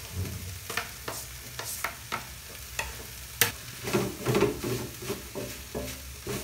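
Chopped bell peppers pushed off a plastic cutting board into a metal frying pan, then a wooden spoon stirring and scraping the pan, over steady sizzling. Many sharp taps and scrapes, the loudest about three and a half seconds in.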